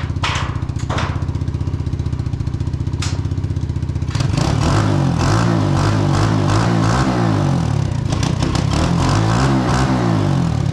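Hawk 125 dirt bike's 125cc engine running as it warms up after its first start, idling steadily with a few sharp clicks, then from about four seconds in louder, its speed rising and falling with the throttle.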